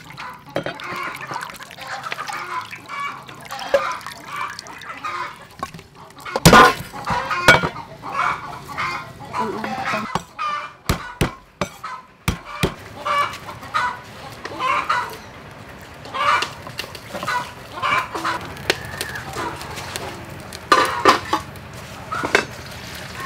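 Chickens clucking and calling again and again, with a few sharp knocks in the middle, the loudest about six seconds in.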